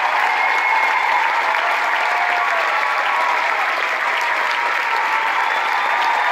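Large theatre audience applauding steadily, with scattered voices in the crowd.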